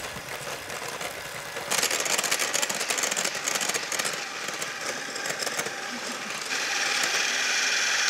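Electric hand mixer running, its beaters whisking eggs and sugar in a glass bowl, working the mix up to a pale, foamy ribbon stage. The whirr steps up in level about two seconds in and grows louder again near the end.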